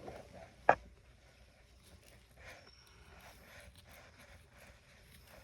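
One sharp click a little under a second in, then faint scraping and light tapping of small repair tools working at a glued iPhone 16 screen.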